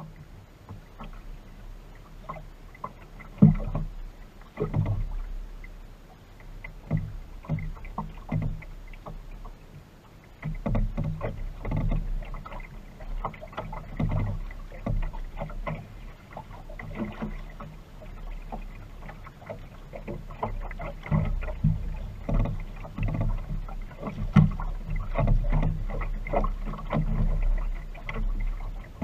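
Water slapping and splashing against the hull of a small wooden sailing dinghy under way, in irregular knocks over a steady low rumble, with a sharp knock about three and a half seconds in.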